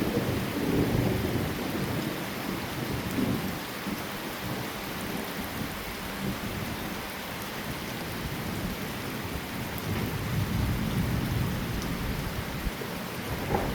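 Heavy rain falling steadily during a thunderstorm, with low rolling thunder rumbling through the first few seconds, again about ten seconds in, and swelling near the end.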